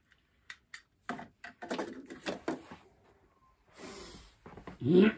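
Handling noise as a CB radio hand microphone is unplugged: two sharp clicks about half a second in, then a run of knocks and rustling as he moves away from the desk, with a louder short pitched sound just before the end.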